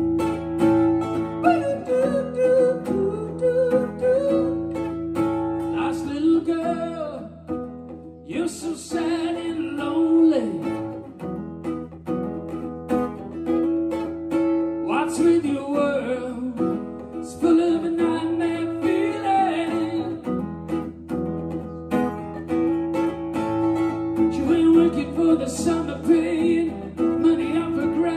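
Acoustic guitar strummed and picked in a steady song accompaniment, with a man's voice singing in several passages.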